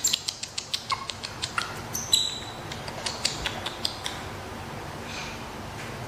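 Quick smacking kisses, about five a second, fading out after about four seconds, with one short high squeak from the baby monkey about two seconds in.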